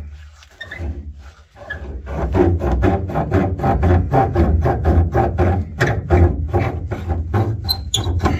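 A ratchet wrench is cranked quickly on a bolt under a car's rear suspension, giving a fast, even rasping of about five strokes a second that starts about two seconds in.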